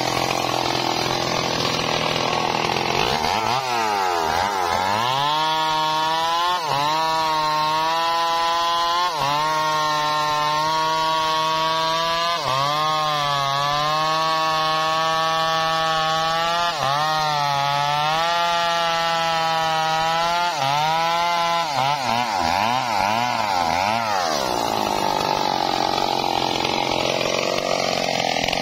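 Stihl MS 382 chainsaw bucking through a felled log. The engine revs up about three seconds in and then runs at full speed under load, its pitch sagging and recovering several times as the chain bites into the wood. It eases off and swings in pitch as it leaves the cut, about two-thirds of the way through.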